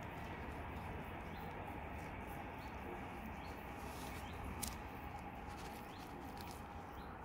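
Quiet outdoor background hiss with faint short chirps every second or so and one sharp click about four and a half seconds in.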